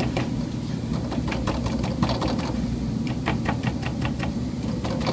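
D5 water-cooling pump running with a steady low hum and an irregular light rattle of clicks: the impeller moving around because of a bad bearing.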